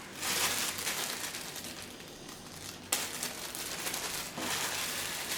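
Plastic packaging crinkling as it is handled, with a sharper rustle about three seconds in.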